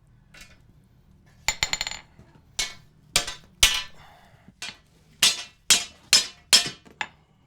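Sledgehammer blows driving a hot cut chisel through red-hot flat steel on an anvil, each strike a sharp metallic clang with a short ring. A quick flurry comes a second or two in, then single blows follow at a steady pace of about two a second.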